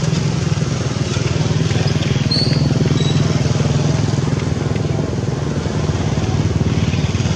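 Small engine, like a motorbike's, running steadily with a low, rapid pulsing note. A brief high chirp about two seconds in.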